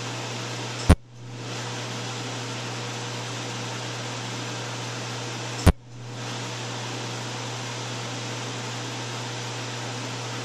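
Two sharp snaps about five seconds apart, single pulses of a Cutera vein-treatment laser firing against the skin, over a steady fan hum and hiss.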